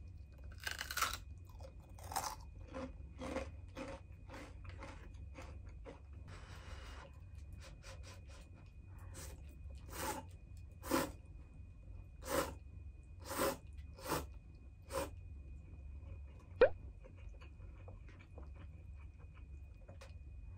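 Slurping and chewing of instant cup noodles close to the microphone: one longer slurp about six seconds in, then a run of short, sharp slurps about one a second, with a single sharp click near the end.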